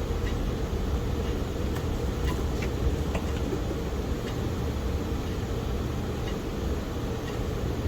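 Steady low hum, like a small fan or machine running, with a few faint light clicks scattered through it.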